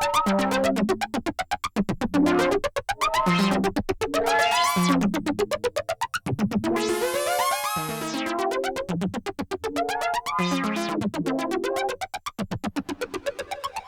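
Sequential Take 5 analog polysynth playing an FM-style patch: a fast run of short, plucky pitched notes in a repeating sequenced pattern, with sharp attacks and a brighter, glassier stretch about halfway through.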